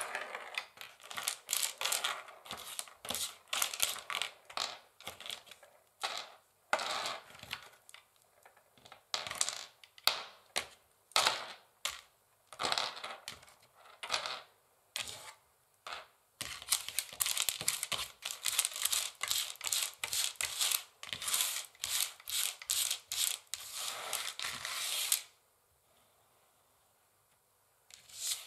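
Long fingernails tapping on a wooden chessboard in quick, irregular clicks, with a dense fast run of taps in the second half. The tapping stops a few seconds before the end, then starts again.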